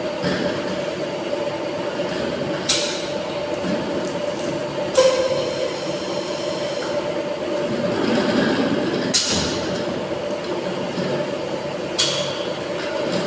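Tilting-type air jet bottle cleaning machine running with a steady mechanical hum, broken four times by short, sharp bursts of air.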